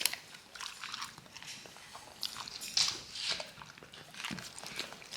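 A dog eating a lettuce-wrapped burger: irregular crunching, biting and lip-smacking, loudest about three seconds in.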